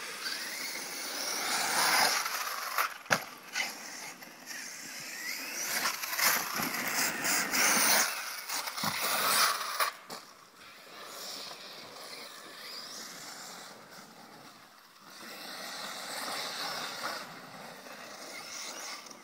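Radio-controlled off-road cars running on a dirt track: a high motor whine rising and falling over the hiss of tyres on loose dirt, with two sharp knocks, about three and nine seconds in. It gets quieter after about ten seconds.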